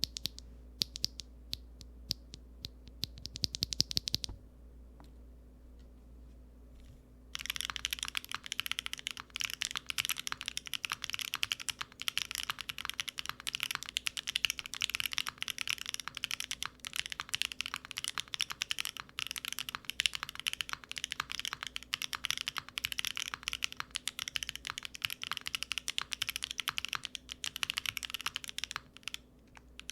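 Clacky typing on a mechanical keyboard with BSUN Snow Diane linear switches, mounted on an aluminium plate with no foam and fitted with GMK keycaps. A few separate keystrokes come first, then a pause of about three seconds, then fast, continuous typing from about seven seconds in.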